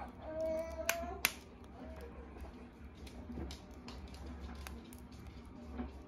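A few sharp pops from a freshly microwaved bag of pork rinds still puffing, the two loudest about a second in and fainter ones scattered after. A short steady tone sounds just before the loudest pops.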